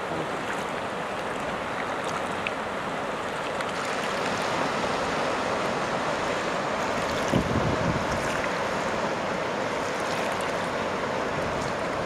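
Flood-swollen river running high and fast, a steady rush of water over rapids that grows a little louder about four seconds in. A brief low thump about seven seconds in.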